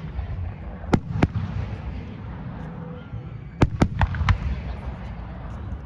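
Aerial fireworks bursting: two sharp bangs about a second in, then four more in quick succession just past the middle, over a steady low rumble.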